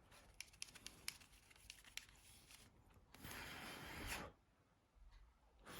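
Faint handling sounds while dust is cleaned off a mobile phone display: a few small ticks, then about a second of soft rubbing noise. Near the end comes a short puff of breath blown onto the part.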